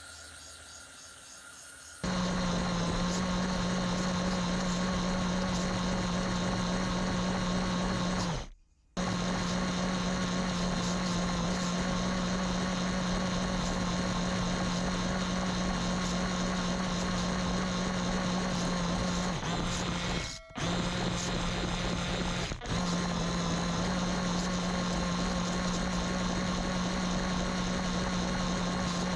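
Micro RC car's small electric drive motor running with a steady buzzing whine, starting about two seconds in. It cuts out briefly three times.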